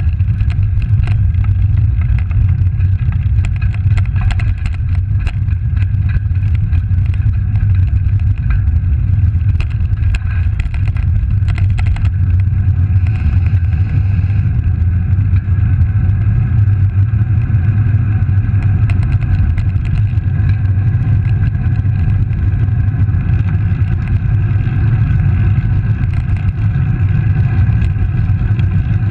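Steady low rumble of wind and road noise on a handlebar-mounted camera as a Specialized Langster road bike rolls over rough, cracked asphalt, with many small clicks and rattles from the bumpy surface during the first dozen seconds.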